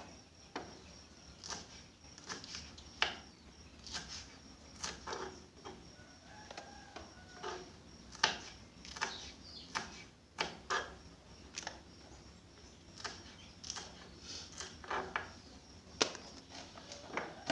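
Irregular sharp clicks and knocks, roughly one or two a second, of a kitchen knife on a cutting board as bird's eye chilies are prepared for slicing.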